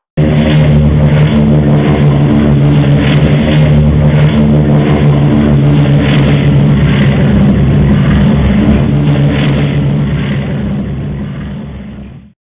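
Multi-engine turboprop aircraft's propeller engines running with a steady deep drone and a regular pulsing about twice a second. It starts abruptly, eases slightly, then cuts off near the end.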